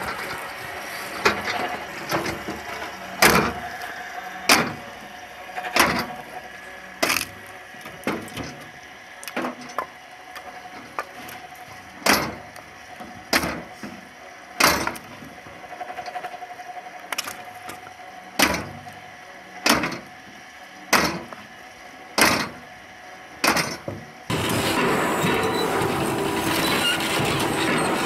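Homemade electric firewood splitter running with a steady hum, a log cracking apart on it a little more than once a second as blocks are fed in. About 24 seconds in this gives way to a louder, steady machine noise.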